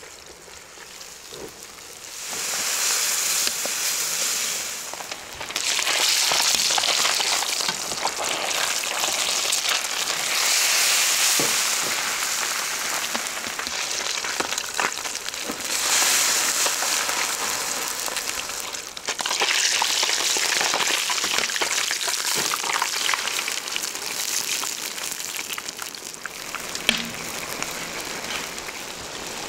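Fish frying in hot oil in a pan: a loud, steady sizzle with spitting crackles that swells and eases several times, with a few sharp clicks, the loudest near the end.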